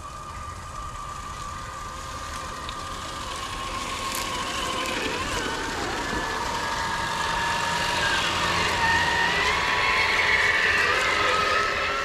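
Electric motor and gear whine of a scale RC rock crawler. The pitch rises and falls with the throttle, and the sound grows louder toward the end.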